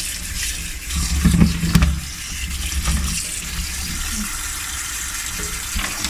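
Kitchen tap running, water splashing into a sink, with a few knocks about a second in.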